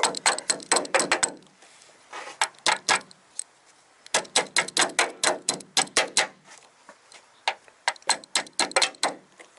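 A metal ratchet tapped repeatedly against the lower end fitting of a VW Mk4 hood strut, to knock a stubborn retaining clip into place. Quick runs of light metallic taps, several a second, come in four bursts with short pauses between.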